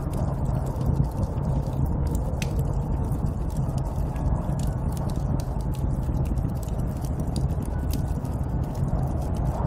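Snowstorm wind: a steady, deep rush of blizzard noise, with many small crackles scattered through it.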